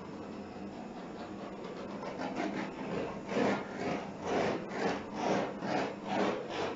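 Handheld blow torch hissing steadily. From about two seconds in, a rhythmic rasping rub takes over, about two strokes a second and growing louder.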